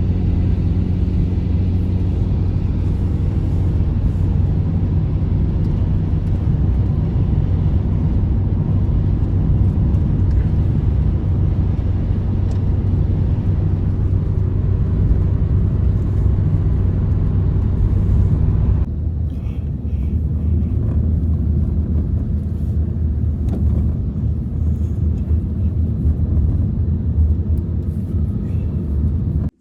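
Loud, steady low rumble with a droning hum in it. It starts and stops abruptly, and drops a little in level and loses its higher part about two-thirds of the way through.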